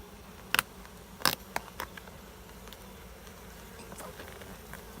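A swarm of honey bees buzzing steadily, with a few sharp clicks in the first two seconds.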